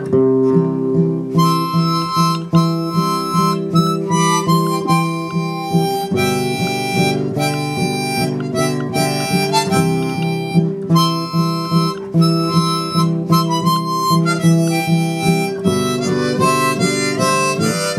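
Instrumental break of a cowboy song: a harmonica comes in about a second in and plays the melody over steadily strummed acoustic guitar.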